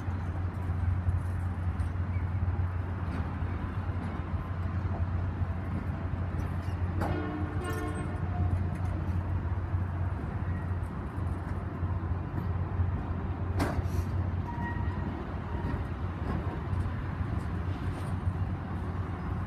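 Canadian Pacific passenger cars rolling past a platform as the train departs, a steady low rumble throughout. A short pitched sound comes about seven seconds in and a single sharp knock near fourteen seconds.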